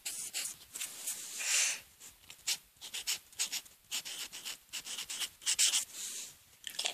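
Pen scratching across paper in many quick, irregular strokes.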